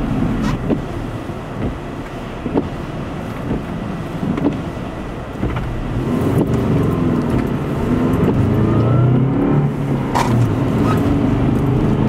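A car driving, with steady low engine and road rumble. About halfway through, the engine note rises and falls as the car accelerates. A few short knocks sound along the way.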